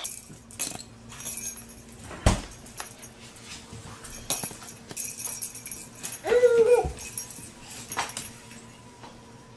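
A toy flutters and clatters lightly on a hardwood floor, with a sharp knock about two seconds in. A little past six seconds comes one short, high squeal that rises and falls.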